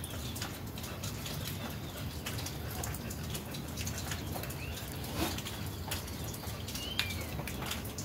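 Outdoor farmyard ambience: a low steady rumble with scattered light clicks and rustles, and a few short bird chirps, the clearest one about seven seconds in.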